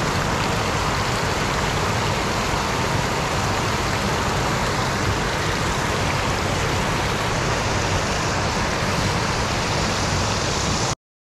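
Water rushing steadily over a rock ledge, a constant loud whitewater roar that cuts off suddenly near the end.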